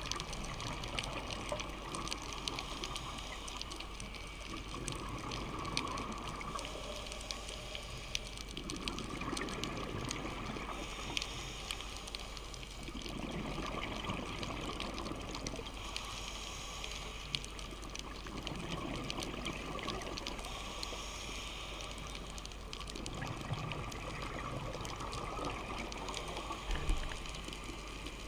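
Underwater sound of a scuba diver's regulator breathing: a steady hiss with a gurgling rush of exhaled bubbles every four to five seconds.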